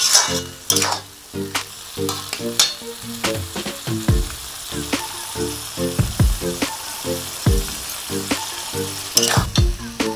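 Potatoes frying in spice masala in an aluminium kadhai, sizzling while a metal spatula stirs and scrapes the pan, with sharp scrapes near the start and near the end. Background music with a repeating bass line and beat plays under it.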